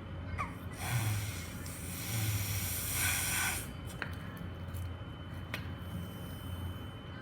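Breath blown hard through a drinking straw into bubble-making clay: a rush of air lasting a few seconds, then a couple of small clicks. The clay fails to form a bubble.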